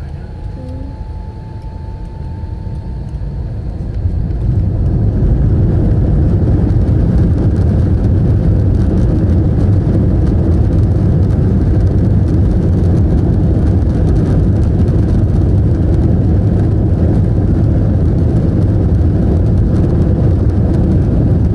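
Airbus A321 jet engines spooling up to takeoff thrust, heard from inside the cabin, with a faint rising whine at first. Within about four seconds the sound swells into a loud, steady rumble of the takeoff roll as the airliner speeds down the runway.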